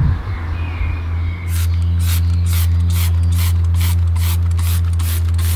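Hand trigger spray bottle of tyre cleaner being pumped quickly onto a tyre, starting about a second and a half in. Each pull of the trigger gives a short hiss, about two to two and a half a second. A steady low hum runs underneath.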